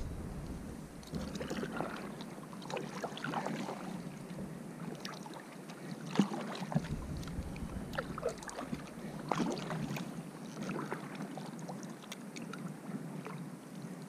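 Kayak paddle dipping and splashing in the water, stroke after stroke at irregular intervals.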